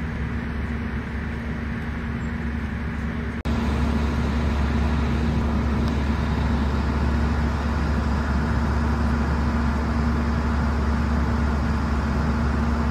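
Steady low rumble of idling vehicle engines with a constant hum. It jumps a little louder at a cut about three and a half seconds in.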